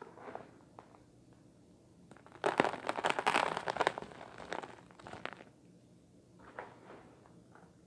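Small bits of debris dropped from a hand and pattering onto a plastic tray: a dense crackle of tiny impacts for about three seconds starting a couple of seconds in, then a few scattered ticks.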